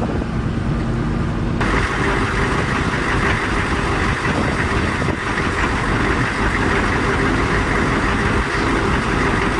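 Military Humvee's V8 diesel engine idling steadily, coming in with a cut about a second and a half in, after a brief stretch of street traffic noise.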